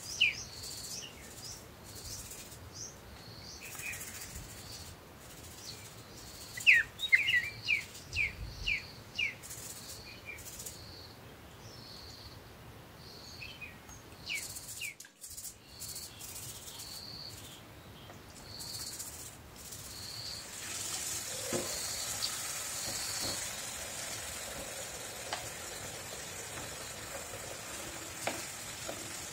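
A plastic scrub brush scrubbing oranges over a metal sink in quick, even strokes, with short high chirps among them. About two-thirds of the way through, a tap starts running steadily into the sink.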